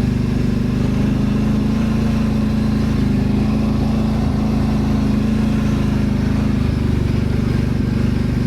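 Kawasaki Brute Force 750 ATV's V-twin engine idling steadily, an even low hum with no revving.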